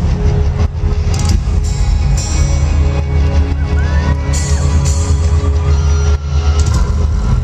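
Loud music over an arena PA with heavy, booming bass and percussive hits, as heard from within the crowd through a small camcorder's microphone. A single rising-and-falling whoop cuts across it around four seconds in.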